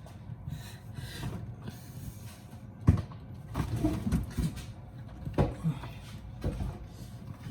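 Refrigerator being tugged and rocked by hand, giving scattered knocks and thumps, the sharpest one about three seconds in, as the heavy unit shifts against the floor and its alcove.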